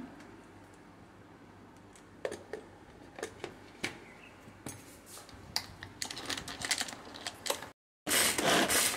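Plastic clicks and knocks as the lid is fitted onto a pull-cord hand chopper. In the last second its cord is pulled repeatedly, the blades inside spinning and chopping cabbage with a loud, fast rattle.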